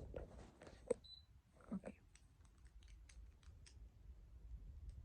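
Faint, scattered small clicks and taps of plastic Lego bricks being handled and fitted together, with one sharper click about a second in.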